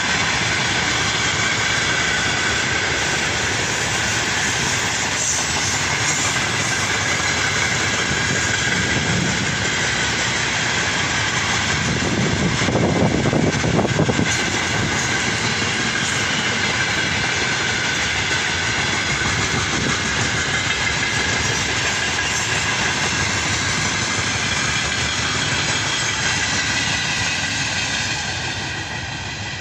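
Freight train's open gondola wagons rolling steadily past, the wheels rumbling and clattering on the rails with a faint steady high ringing above. The rumble swells for a couple of seconds about twelve seconds in.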